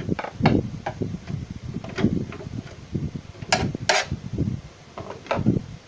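A screwdriver working the screws out of a Samsung CRT monitor's plastic back cover: irregular clicks, knocks and scrapes of metal on plastic, with two sharp clicks a little past halfway.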